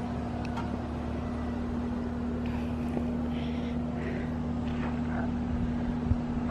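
A steady mechanical hum with one constant droning tone over a low rumble.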